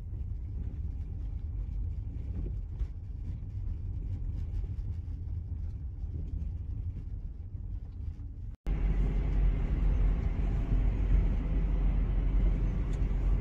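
Low, steady engine and tyre rumble heard from inside an Audi's cabin as it rolls slowly through a toll plaza. About two-thirds through there is a brief break, after which the rumble is louder and has more hiss.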